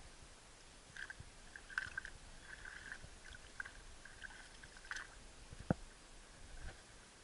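Faint kayak paddling: a paddle dipping into shallow water, with small irregular splashes and drips, and one sharp knock about two-thirds of the way through.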